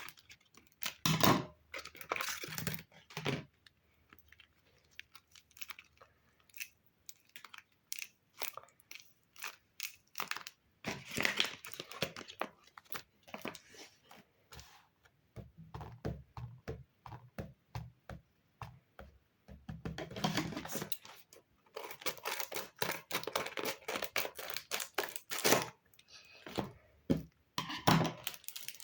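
Paper and packaging handled close to the microphone: irregular crinkling, rustling and tearing, with clusters of small clicks and taps and short pauses between them.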